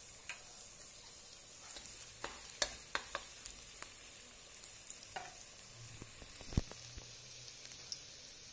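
Minced garlic frying in oil in a wok, a steady high sizzle, with scattered sharp clicks and knocks of a utensil stirring against the wok; the loudest knock comes about two-thirds of the way through. The garlic is at the start of frying, not yet browned.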